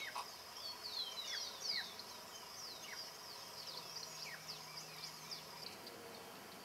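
Many short, high bird chirps sweeping downward, overlapping from several birds and thickest in the first two seconds, over a steady high insect drone.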